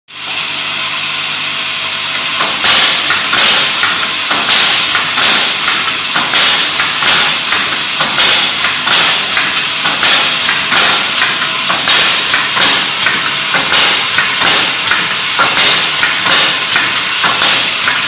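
Automatic sofa spring-clip nailing machine firing its pneumatic nailers, a sharp bang about twice a second as plastic spring clips are nailed onto a wooden rail. The banging starts about two and a half seconds in, over a steady machine hiss.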